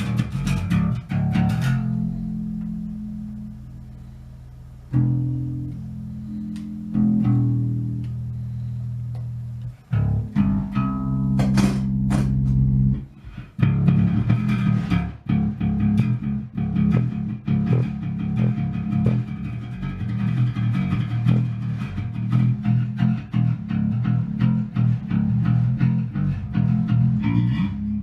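Fender Squier electric bass played with a pick, test-played after a wiring repair. A few long low notes ring and fade over the first half, then a quick run of picked notes fills the rest.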